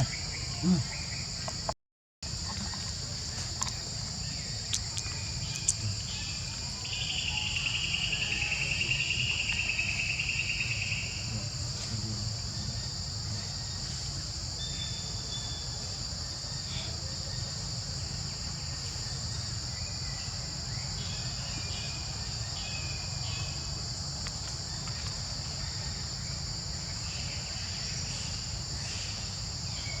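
Steady outdoor insect chorus, a continuous high shrill drone on two pitches, over a low background rumble. A louder, wavering buzz joins in for about four seconds starting near seven seconds in.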